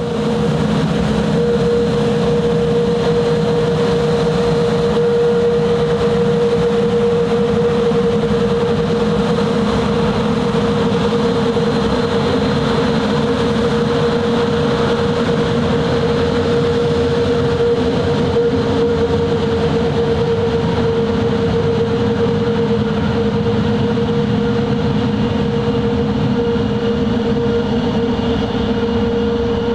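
Sukhoi Superjet 100's twin PowerJet SaM146 turbofans running at taxi power as the jet rolls onto the runway: a loud, steady drone with one held mid-pitched hum over a low rumble.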